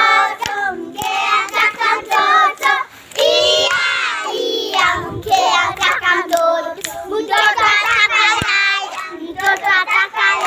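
A group of young children singing a game song together without instruments, with a few hand claps.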